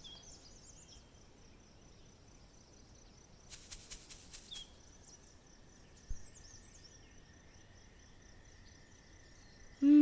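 Quiet hand-made Foley for a cartoon: faint bird-like chirps, a short burst of rapid clicking about three and a half seconds in, and a single sharp click about six seconds in.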